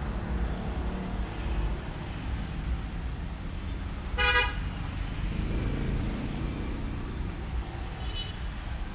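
A brief horn toot about four seconds in, with a fainter short toot near the end, over a steady low rumble.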